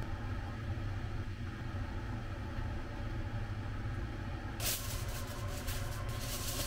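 Aluminium foil crinkling as it is handled, in uneven crackly bursts starting about two-thirds of the way in, over a steady low hum.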